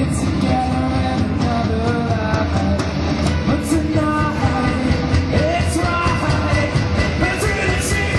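Live rock band playing: electric guitars, bass and a drum kit, with cymbal crashes recurring through the bar.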